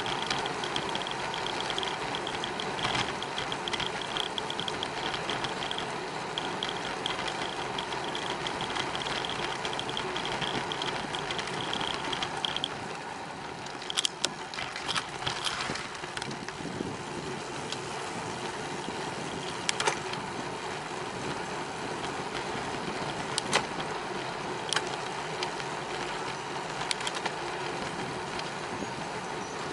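Steady wind and rolling noise of a bicycle ride, with a rhythmic high ticking through the first twelve seconds or so and a few sharp clicks and knocks later on.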